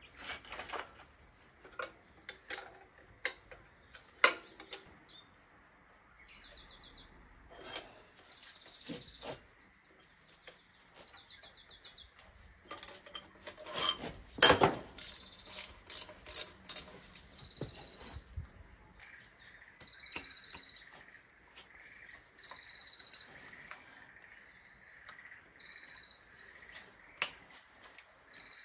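Socket ratchet clicking in short bursts about every two seconds, with sharp knocks of metal tools, as bolts and nuts are worked loose on a V6 engine.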